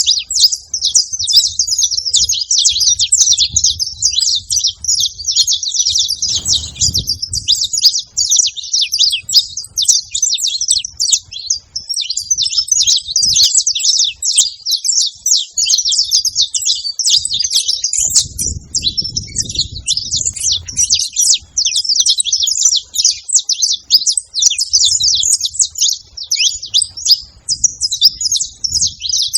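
Saffron finches chirping and calling in a dense, unbroken high-pitched chatter, with brief faint low rumbles a few seconds in and again past the middle.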